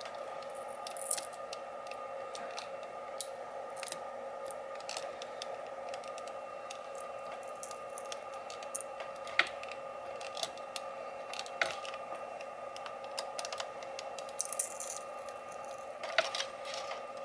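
An FDM 3D printer humming steadily on two held tones, with scattered light clicks and ticks.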